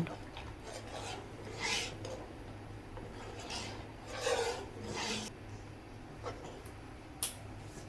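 A utensil scraping and stirring through thick curry gravy in a pan, in several separate strokes, with a short sharp click near the end.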